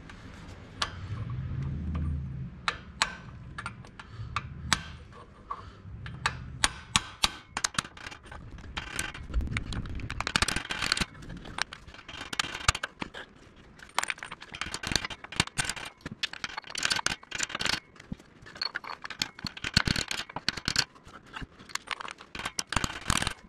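A hammer tapping over and over on a socket and extension used as a driver, seating the block heater sleeve into the freeze plug hole of a tractor's engine block. Many sharp metallic taps come at an irregular pace, with metal scraping and clinking in between.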